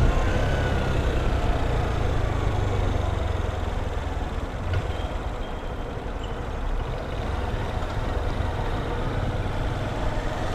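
Honda CG Titan 160 motorcycle's single-cylinder four-stroke engine running on the move, with a strong low exhaust note; it eases off around the middle and picks up again near the end.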